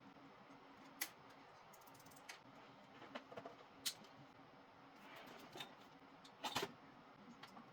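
Scattered light clicks and taps from hands handling computer parts, the loudest a quick double knock near the end, over a faint steady hum.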